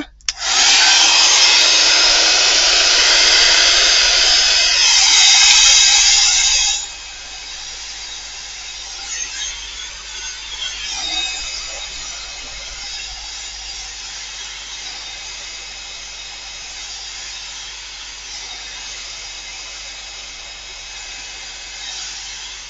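Small handheld hot-air dryer (craft heat tool) blowing to dry acrylic paint on a gel-plate print. It starts about half a second in with a loud rushing blow, gets brighter near five seconds, drops much quieter at about seven seconds and then runs on steadily.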